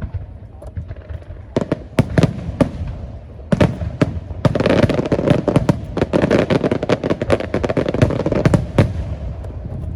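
Fireworks display: scattered sharp bangs at first, then from about halfway through a dense run of rapid bangs and crackling that thins out near the end.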